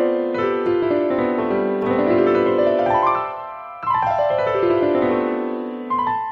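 Solo piano background music: a run of notes climbs stepwise, then a fresh phrase is struck about four seconds in and steps back down.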